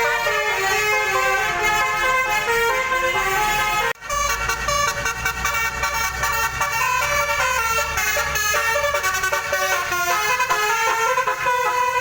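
Bus telolet (basuri) multi-tone horn playing a rapid melody of stepping notes. The tune breaks off abruptly about four seconds in and resumes at once, now with a low steady hum underneath.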